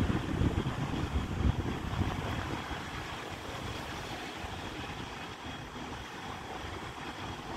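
Wind buffeting the microphone, loudest in the first two seconds, over a steady low hum from an SRT Red Line electric commuter train rolling slowly up to the platform.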